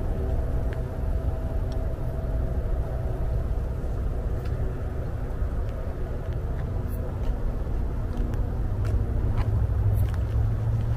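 Steady low rumble of distant motor traffic with a faint engine hum, and a few faint ticks.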